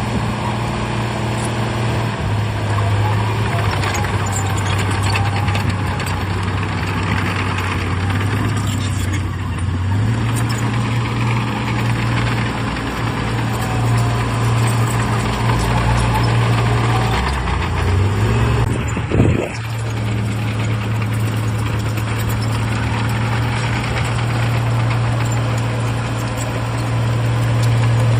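Heavy diesel earthmoving machinery running continuously, its low engine note stepping up and down as the load and revs change. There is one brief, sharper loud sound about 19 seconds in.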